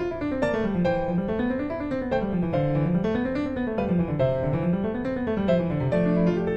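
Background piano music, with a run of low notes rising and falling about four times under higher sustained notes.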